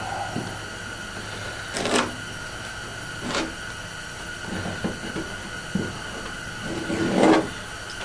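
Small parts being handled by hand on a Jeep's hood and fender: scattered clicks, taps and rustles, the loudest about two seconds in and again near the end, over a steady background hum.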